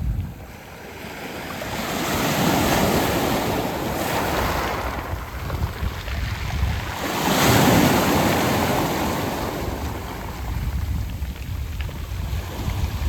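Sea waves washing onto a round-pebble (mongdol) beach. Two surges build and break, the second about halfway through and the louder one, then the water drains back.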